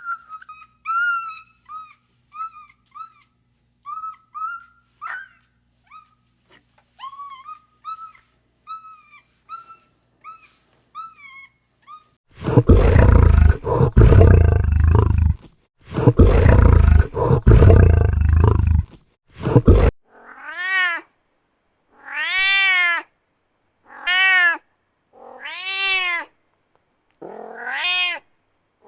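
A run of short, high chirping calls, then two long, loud roars from a big cat, then a cat meowing about five times, one meow every second and a half or so.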